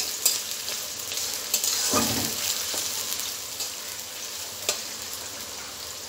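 Sliced onions sizzling steadily in hot oil in a metal wok while being fried into birista, with a metal spatula clicking and scraping against the pan now and then as they are stirred, and one duller knock about two seconds in.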